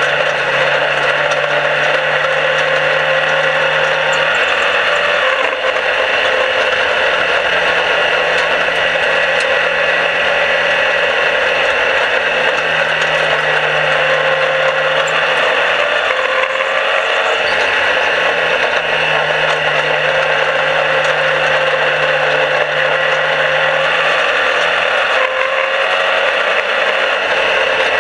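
Small dirt-track race car's engine running hard, heard from the cockpit under loud wind and track noise; its note shifts every few seconds.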